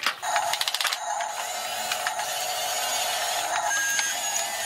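Toy RC bulldozer's small electric drive motors and plastic gearboxes whirring steadily as it turns on its tracks, with a quick run of clicks in the first second.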